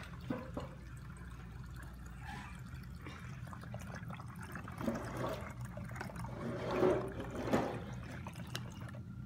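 Root beer pouring from a jug through a plastic funnel into a bottle as the bottle fills up toward the neck, getting louder in the second half.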